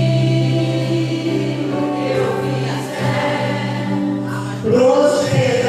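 A group of voices singing a gospel worship chant together over a steady held accompaniment, swelling louder near the end.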